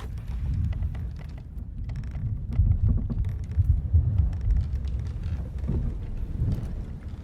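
Sailing-ship ambience: a low, rumbling wash of sea and wind around the hull that swells and is loudest in the middle, with scattered small creaks and clicks from the ship's timbers.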